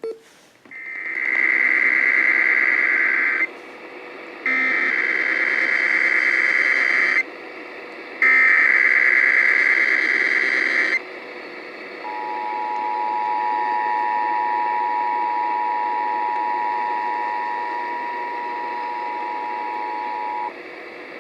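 Emergency Alert System Required Monthly Test received over AM radio: three bursts of SAME header data tones about a second apart, then the steady two-tone EAS attention signal for about eight seconds. Static hiss and a faint steady whistle from the AM reception sit underneath.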